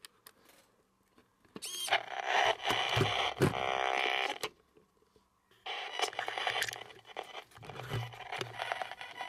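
Spirit box sweeping through radio channels: choppy bursts of static mixed with broken snatches of broadcast sound. It starts about a second and a half in, cuts off suddenly for about a second midway, then resumes.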